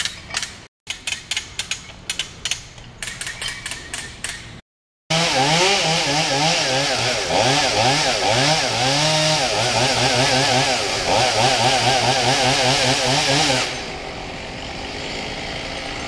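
A run of sharp clicks and knocks, cut by short silent gaps, then a two-stroke chainsaw starts loudly about five seconds in. It revs up and down repeatedly for about eight seconds, then drops off sharply to a much quieter level near the end.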